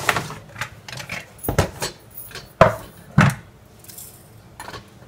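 Clinks and knocks of a stainless steel spice box, its small tins and a spoon as spices are scooped into a cooking pot: about eight sharp metal clinks, the loudest about two and a half seconds in and another half a second later.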